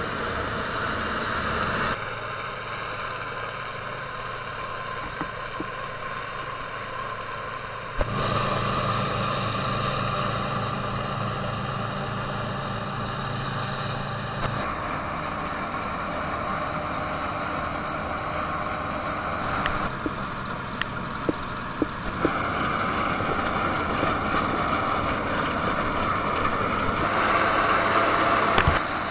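Diesel engines of Bizon combine harvesters running steadily while harvesting grain, heard in several shots whose sound changes abruptly every few seconds.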